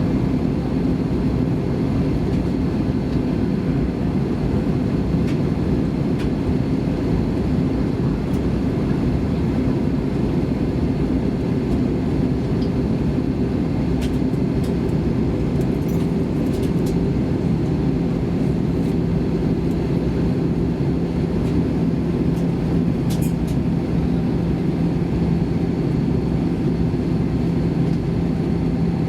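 Airbus A320 cabin noise on descent: a steady rush of airflow and engine drone, with a low hum that grows stronger about two-thirds of the way through.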